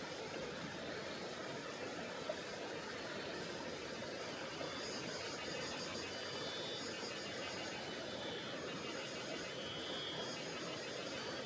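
Tonghou River's water rushing steadily over its rocky bed. From about five seconds in, a high rapidly pulsing trill comes and goes over the water, and there is a single faint click about two seconds in.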